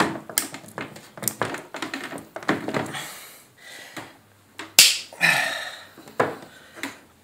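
Grey plastic PVC pipe fittings being twisted together by hand and set down on a wooden tabletop: a string of light clicks, taps and scrapes, with a sharper knock about five seconds in and another about a second later.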